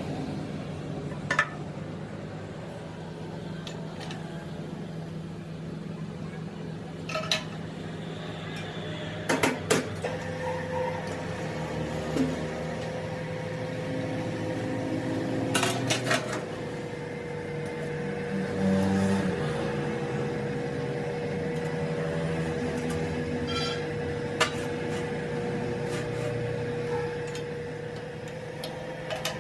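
Metal lathe running with a steady hum, a steady whine setting in about ten seconds in, and sharp metallic clinks of tools and parts at several moments.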